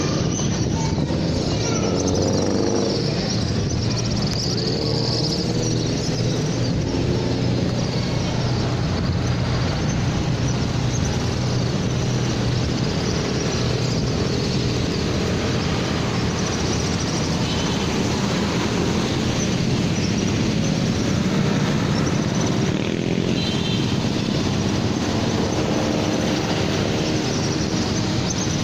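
Steady road traffic, motorcycles and cars going by.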